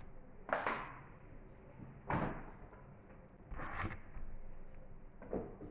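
Books being handled: four short rustling knocks, spaced about a second and a half apart.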